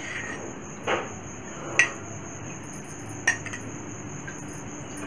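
A steel spoon clinking against a glass bowl while oil is ladled out: three sharp clinks with a short ring, the loudest near the middle.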